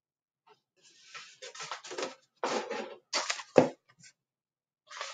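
A picture book being handled, its paper pages rustling as it is lowered and turned, with a sharp knock about three and a half seconds in, the loudest sound.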